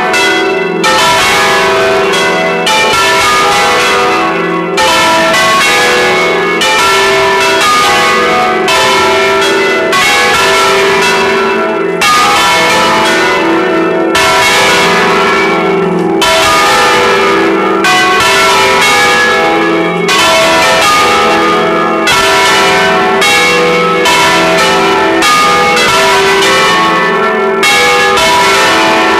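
A set of five church bells in a bell tower rings together at close range, loud. Strokes fall every fraction of a second and overlap into one continuous peal.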